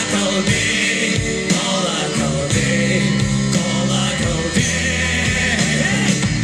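Russian rock music played from a vinyl record: a full band with a steady drum beat about twice a second under sustained chords, in a passage with no lyrics.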